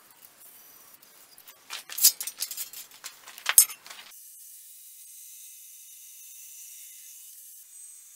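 A flurry of sharp metal clinks and scrapes from a forged steel blade blank being handled and marked on an anvil, starting about two seconds in and stopping abruptly about two seconds later, followed by a faint steady hiss.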